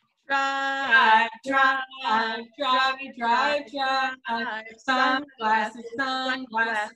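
A man's and a woman's voices singing a sing-song chant, 'Drive! Drive! Drivey-drive-drive!' and 'Sunglasses! Sunglasses! Sunny-sunglasses!', in short held syllables on a steady pitch, about two a second.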